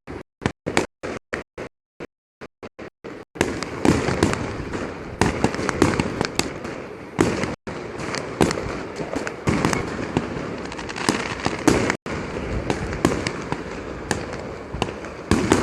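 Firecrackers going off in a rapid string: separate sharp bangs about four a second for roughly three seconds, then a dense, unbroken crackling barrage of explosions.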